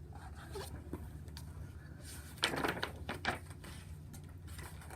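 Paper pages of a picture book being handled and turned: scattered soft clicks and rustles, with a louder burst of rustling about halfway through, over a low steady room hum.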